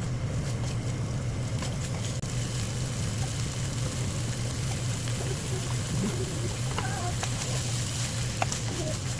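Food sizzling in a frying pan: a steady hiss over a constant low hum, with a few light clicks.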